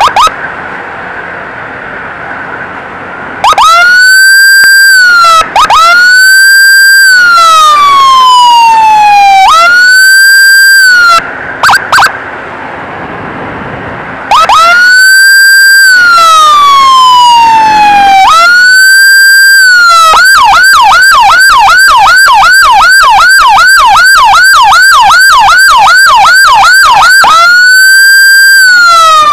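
Electronic emergency siren, very close and loud. It gives a couple of short chirps, then from about three seconds in a repeating wail: each cycle rises quickly, holds a high tone, then slides down over about two seconds. About twenty seconds in it switches to a fast yelp of roughly three sweeps a second, then goes back to the wail near the end.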